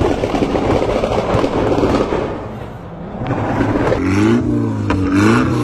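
A car engine is revved in quick blips, its pitch rising and falling over and over, starting about two-thirds of the way through. Before that comes a loud, dense rumble that dips for a moment just before the revving begins.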